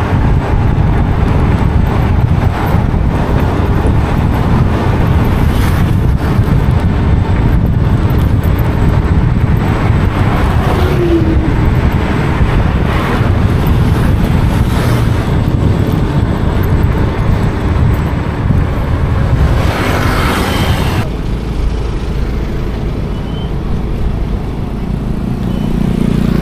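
Road traffic noise: a steady low rumble of vehicles, which changes abruptly about 21 seconds in.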